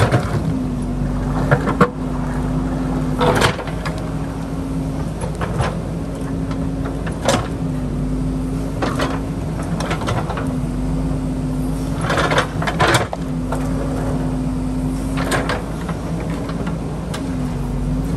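JCB backhoe loader's diesel engine running steadily, its pitch dipping briefly a few times, while the backhoe bucket works a large boulder. Repeated sharp clunks and scrapes of steel on rock come through, the strongest about three seconds in and again about two-thirds of the way through.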